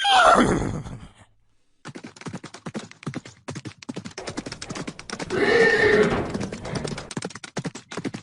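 A horse whinnying, the call falling in pitch, followed by a rapid run of hoof clip-clops. A second, lower neigh comes about two-thirds of the way through.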